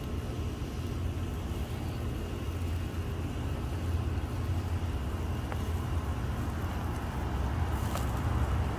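Steady low background rumble, with a couple of faint clicks from clam shells as they are set by hand into boiling broth in a cast-iron Dutch oven.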